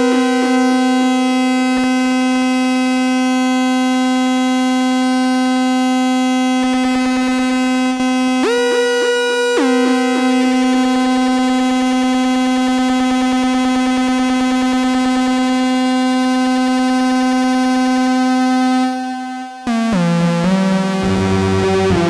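Arturia MiniBrute analogue synthesizer holding one long, bright, buzzy note rich in overtones, through a Line 6 M5 delay pedal. Its tone shifts briefly about nine seconds in. Near the end the sound dips, then breaks into a run of falling stepped notes.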